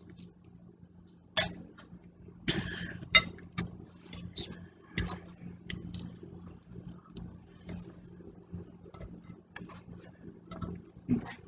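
Tableware sounds of someone eating: a fork clinking and scraping on a dinner plate and a plastic cup being set down on the table, as scattered short clicks and taps. The sharpest come about one and a half and three seconds in.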